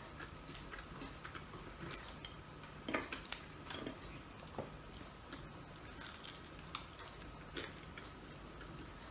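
Eating by hand: small clicks and taps of fingers picking rice and fried fish off a ceramic plate, with soft chewing. The sharpest clicks come about three seconds in, over a faint steady hum.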